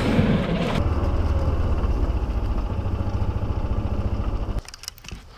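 Golf cart driving across grass, its motor giving a steady low hum that stops abruptly near the end.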